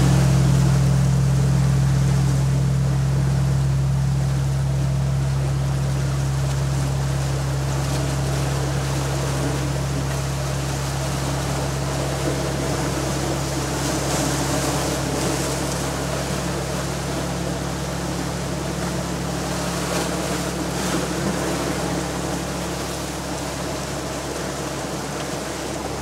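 A deep, steady gong tone that starts just before and slowly fades throughout, over the wash of sea surf breaking on rocks.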